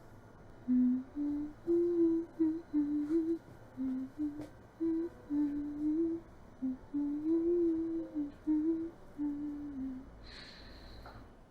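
A person humming a slow melody with the mouth closed: a run of short and held notes that step up and down in a narrow mid-low range and stop about ten seconds in. A brief high squeak comes near the end.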